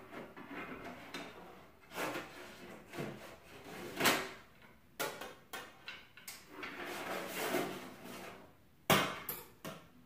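Handling noise from work on an LED light cable at a wooden kitchen cabinet: scattered sharp knocks and clunks, about six, the loudest about 9 s in, with rustling and scraping between.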